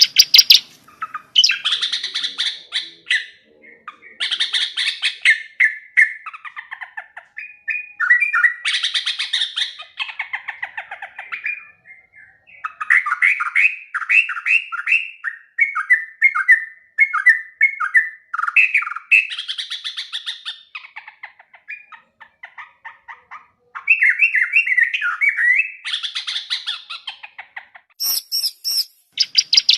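Yellow-vented bulbul (trucukan) singing: bursts of rapid, chattering phrases a few seconds long, with short pauses between them.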